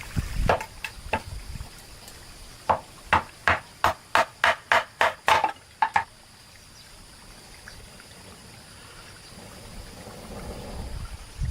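A run of about ten sharp knocks, roughly three a second, that stops about halfway through, over a faint steady hiss.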